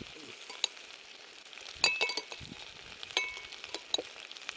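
Metal tongs clinking against a glass bowl as leftovers are scraped out into a cast iron pan: about five sharp clinks with a short glassy ring, the loudest about two and three seconds in. Under them, a faint steady sizzle of food frying in the pan.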